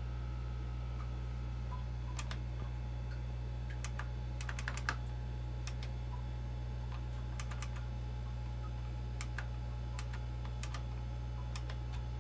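Scattered, irregular key presses on a computer keyboard, a few in quick clusters, over the steady low hum of a running IBM PC AT.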